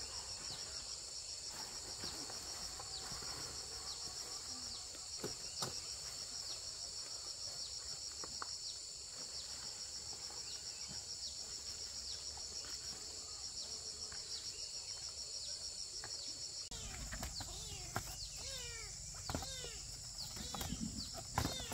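Steady, high, finely pulsing chorus of insects throughout, with faint small chirps. In the last five seconds a low rumble comes in, along with a quick series of falling chirps and a few clicks.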